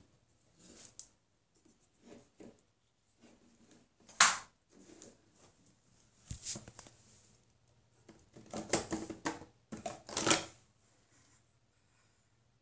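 Handling noises close to the microphone: scattered rustles, clicks and knocks as the phone and things near it are moved about, with one sharp knock about four seconds in and a run of louder rustling and knocks around nine to ten seconds.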